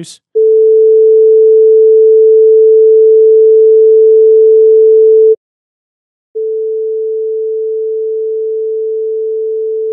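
A 440 Hz sine-wave test tone held steady for about five seconds at 0 dB, then, after a second's gap, the same tone again about 10 dB quieter (−10 dB), the step that listeners generally hear as roughly half the volume.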